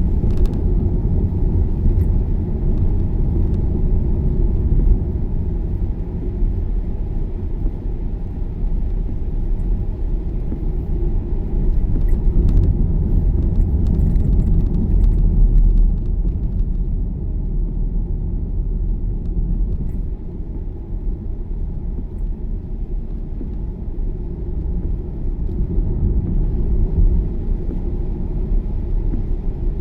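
Car driving along a road, heard from inside the cabin: a steady low rumble of engine and tyres, rising and falling a little in loudness.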